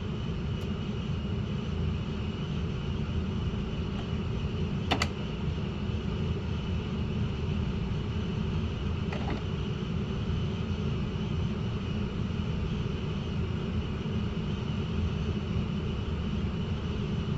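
Coleman Mach RV rooftop air conditioners running with a steady hum, with one sharp click about five seconds in.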